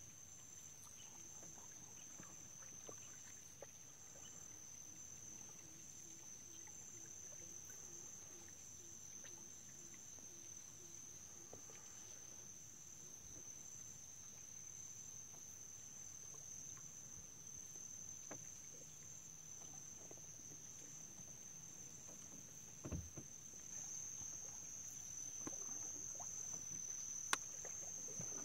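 Steady high-pitched insect chorus trilling from the mangroves, a little louder in the last few seconds, over a faint low rumble from the boat. A single low knock comes about 23 seconds in, and a sharp click near the end.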